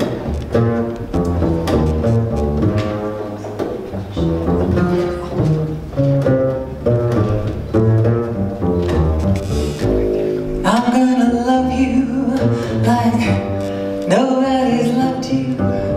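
Upright double bass played pizzicato as a solo introduction. A woman's singing voice comes in over it about eleven seconds in.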